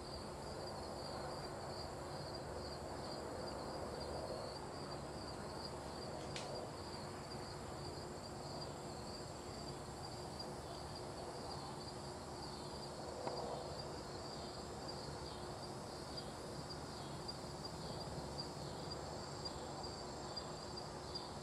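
Steady chorus of crickets and other insects: a high, evenly pulsing chirp over a thinner, still higher continuous trill. A single faint click about six seconds in.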